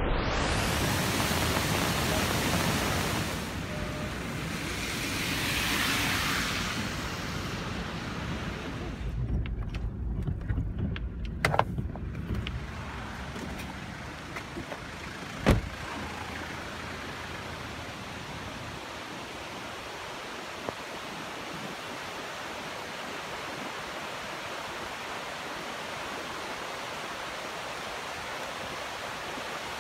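Rushing floodwater: a river in spate gives a steady, loud roar. Partway through it gives way to a few seconds of rustling and scattered knocks, then a steady, quieter rush of flood water.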